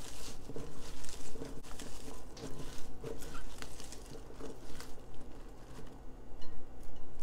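Hands mixing and rubbing thinly sliced raw bok choy, grapes and radishes with salt and lime juice: irregular crackling and crunching of the wet, crisp leaves and slices.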